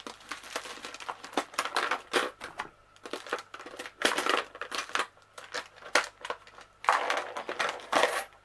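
Plastic being handled and rummaged: irregular crinkling and clicking as a clear plastic storage box of small round bead tubs is fetched and set down, with louder bursts of rustling about four seconds in and twice near the end.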